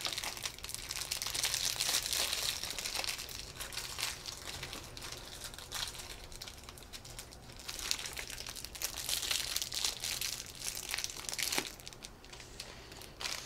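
Plastic blind-bag wrappers crinkling and rustling as they are handled, in runs of quick crackles, loudest at the start and again from about eight to eleven seconds in.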